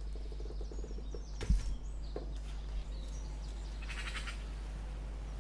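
Faint birds chirping over a steady low hum, with a single knock about a second and a half in.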